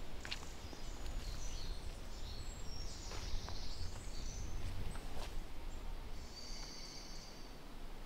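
Songbirds singing, with short chirps and twitters and a longer, steady high note near the end. A few sharp clicks sound now and then over a steady low rumble.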